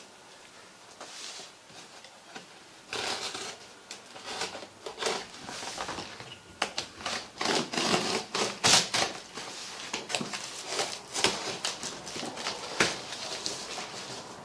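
An orange utility knife slicing through packing tape and plastic wrap on a cardboard box, then the tape tearing and the cardboard flaps being pulled open: irregular scrapes, rips, crackles and sharp clicks, starting about three seconds in.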